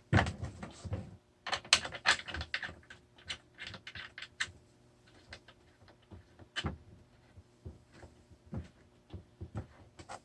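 Irregular clicks and light knocks of a screw and screwdriver being handled and driven into the board's frame. They come thick and fast for the first few seconds, then more sparsely.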